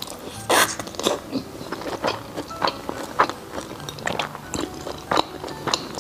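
Close-up biting and chewing of a pan-fried, mushroom-filled dumpling: a string of short, wet mouth clicks at uneven intervals, the loudest about half a second in.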